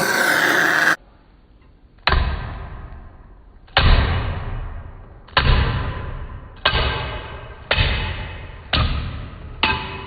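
A loud rushing noise for about a second, then a string of heavy thuds, each with a long fading ring, roughly one a second at first and coming faster near the end.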